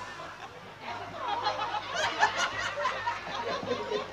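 Audience laughing and chattering, many voices at once, picking up about a second in.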